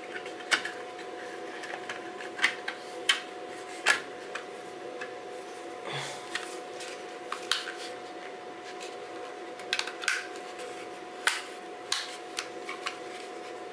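Scattered light plastic clicks and taps as the gray canopy and airframe of a DJI FPV drone are handled and fitted by hand, over a steady faint hum.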